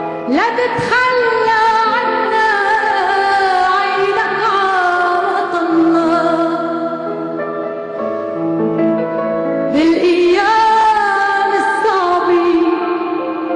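A woman singing an Arabic song in long, held notes with vibrato over sustained instrumental accompaniment; her line slides up into a new phrase right at the start and again about ten seconds in.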